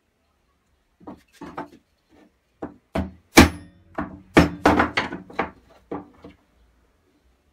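A hammer striking a wooden block: about a dozen irregular knocks, the loudest about three and a half seconds in.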